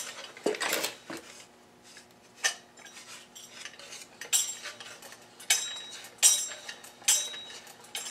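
Hand-spun wooden whirligig propeller and its mechanism: the metal drive shaft turns in its bearings and the wooden cam wheels turn with it, giving scattered sharp clicks and metallic clinks, about eight of them, some with a short ringing tail.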